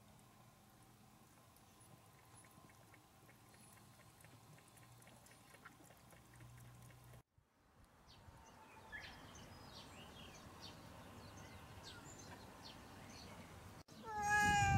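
A cat lapping water from a bowl in quiet ticks, then birds chirping outdoors. Near the end a cat gives one loud meow that bends in pitch.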